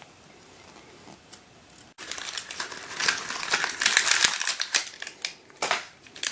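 A mini keychain fidget cube and its plastic packaging being handled: a dense run of small crisp clicks and rustles from about two seconds in, then one sharper click near the end.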